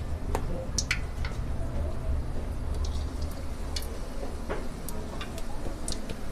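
Batter-coated green chillies deep-frying in hot ghee, bubbling with scattered crackles and pops, over a steady low hum.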